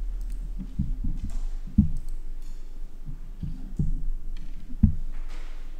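Dull low thumps, about half a dozen at irregular intervals, over a low hum, picked up close by a desk microphone: handling of the microphone or knocks on the desk it stands on.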